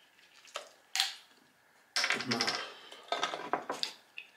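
Plastic soda bottle being handled and its screw cap twisted open: two sharp clicks in the first second, then bursts of crackling plastic about two seconds in and again a little after three seconds.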